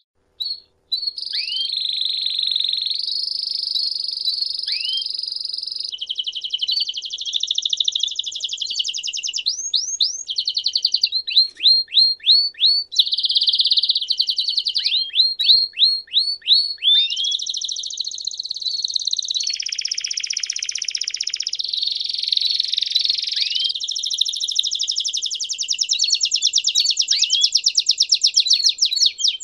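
Domestic canary singing a long, unbroken song: runs of rapid trilled notes that change to a new trill every second or two, mixed with series of sharp downward-sweeping notes. The song starts in earnest about a second in, after a few short notes.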